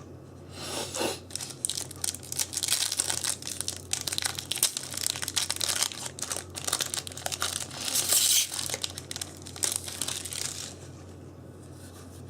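Foil Yu-Gi-Oh booster pack wrappers crinkling and tearing as packs are ripped open, a dense crackle that starts about half a second in and stops about a second before the end.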